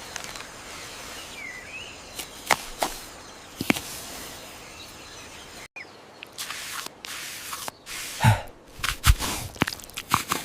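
Faint outdoor ambience with scattered sharp clicks and knocks, which come much more often after a brief dropout about halfway through.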